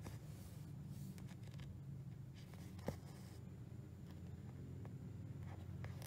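Embroidery floss being pulled through 14-count aida fabric with a needle: soft rustling swishes of thread through cloth, one after another, with a single sharp click about three seconds in. A steady low hum sits underneath.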